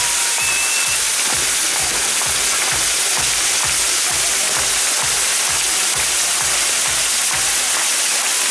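Spinning Maltese mechanical firework wheel, its burning fountains giving a loud, continuous hiss. Under it, a low throb pulses about two to three times a second.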